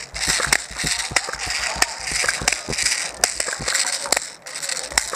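Footsteps and equipment rattling as a player moves across a grass field. Sharp clicks and knocks run all through it.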